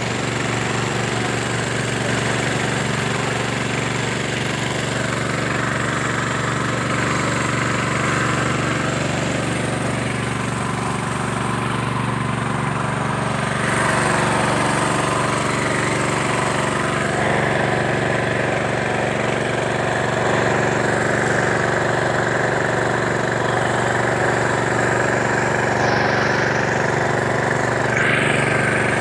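An engine running steadily, a constant mid-pitched drone that grows a little louder about halfway through.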